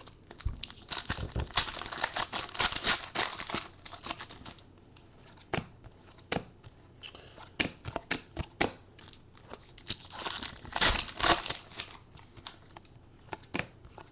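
Foil trading-card pack wrappers being torn and crinkled in two bouts, one from about a second in to about three and a half seconds and another about ten seconds in, with scattered clicks of cards being handled between them.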